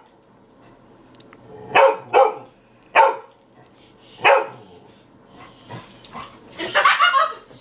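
Dog barking: four single barks about a second apart, then a noisier scuffle of sound near the end.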